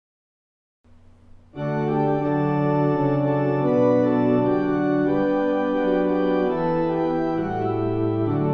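Organ playing sustained, slowly changing chords: the introduction to a hymn. It comes in about a second and a half in, after a moment of silence.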